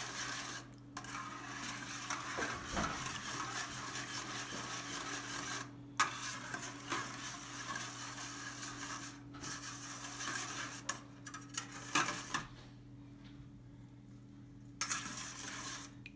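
Wire whisk beating a thin egg-and-milk mixture in a stainless steel bowl: a steady swishing with short pauses and a few sharp clicks of the wires against the metal, stopping for about two seconds near the end before a last short burst. A faint steady hum runs underneath.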